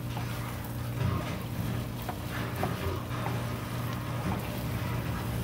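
Wooden spatula stirring and scraping sticky rice in a nonstick wok, with a few light taps against the pan. Under it runs a steady low hum.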